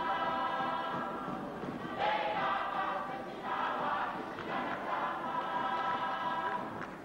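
Samoan church choir singing a Samoan church song in full voice, holding long notes. A new phrase comes in strongly about two seconds in. The sound is dull, with little treble.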